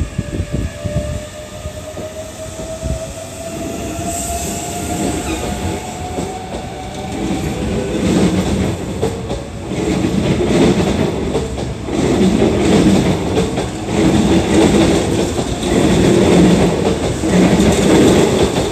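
Hankyu 8300 series electric train pulling out of the station. Its motor whine rises in pitch over the first several seconds, then the wheels clatter over rail joints in repeated bursts, getting louder as the cars speed past.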